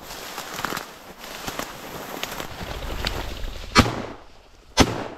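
Two shotgun shots about a second apart, sharp and loud, fired during a pheasant hunt. Before them comes the rustle of walking through cover.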